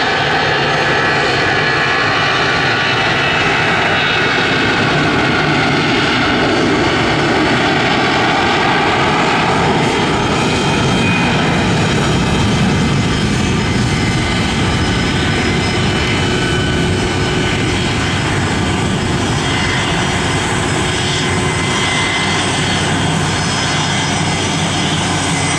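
Boeing 757-200's twin jet engines at taxi power as the airliner rolls along the taxiway: a loud, steady rush with several whining tones over it.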